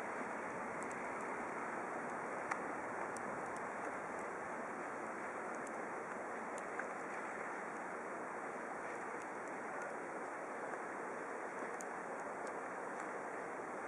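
Steady wash of distant city traffic noise, cars running on a snow-covered road, with a few faint ticks.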